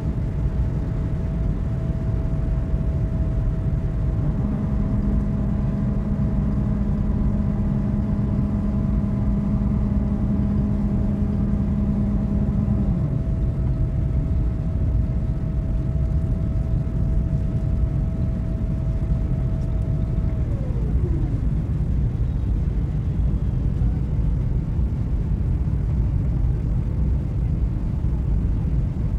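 Airliner cabin noise: a steady low rumble of engines and rushing air. A faint steady whine drops in pitch and fades about 21 seconds in, and a lower hum runs from about 4 to 13 seconds in.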